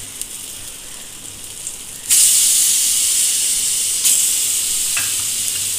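Marinated hilsa pieces frying in hot mustard oil in a pan: a steady hiss that suddenly jumps much louder about two seconds in as another piece goes into the oil.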